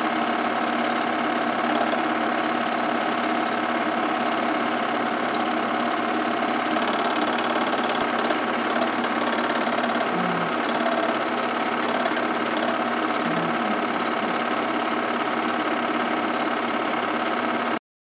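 Home-movie film projector running with a steady mechanical whir and clatter, which cuts off suddenly near the end.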